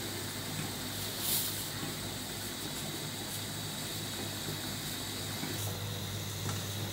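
Pot of water simmering on a stove: a steady hiss over a low hum, with a brief louder burst of hiss about a second in.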